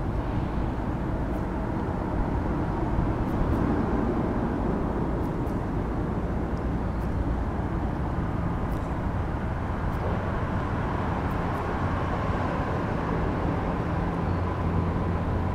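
Steady rumble of vehicle traffic crossing the bridge overhead, with a low hum growing louder over the last couple of seconds as a vehicle passes.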